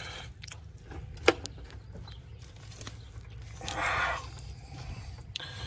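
Hand handling noises at a stubborn plastic electrical connector under the intake manifold: one sharp click a little over a second in, and a short scraping rustle near four seconds.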